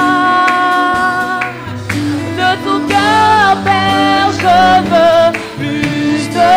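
Christian worship singing: a singer holds long notes, some with vibrato, over steady instrumental accompaniment.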